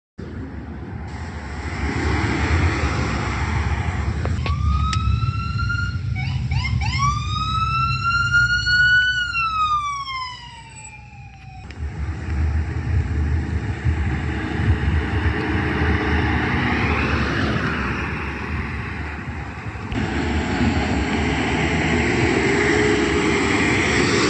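Emergency vehicle sirens over street traffic and heavy engine noise: an electronic siren yelps twice, then winds up and falls away in a long wail, and after a cut a fainter siren rises and falls as fire apparatus passes.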